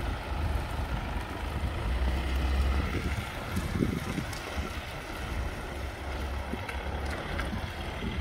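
Mitsubishi L200 pickup's 2268cc diesel engine running as the truck drives slowly across the yard, with wind rumbling on the microphone.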